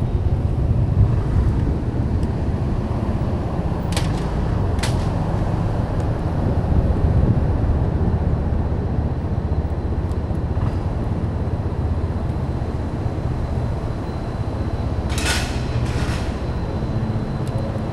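Steady low rumble of city vehicle traffic, with two short clicks about four seconds in and a brief louder hiss about fifteen seconds in.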